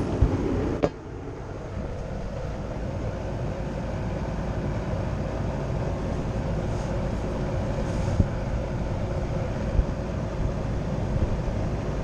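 Heat pump outdoor unit running steadily in heating mode, a constant machine hum with a couple of light knocks partway through.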